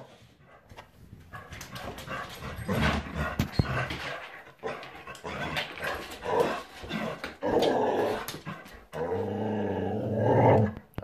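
Standard schnauzer growling and grumbling in short bursts, with a long, low, steady growl starting about nine seconds in, alerted by the postman outside. Sharp clicks are scattered through it.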